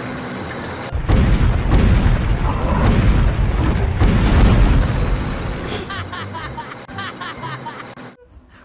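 Cartoon soundtrack: a loud, low rumbling boom, like an explosion effect, over music. It fades into a quick run of short rising chirps near the end.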